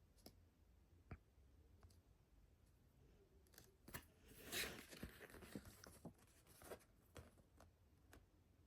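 Faint handling sounds of a CD case being unboxed: scattered light plastic clicks, with a short scraping rustle about halfway through.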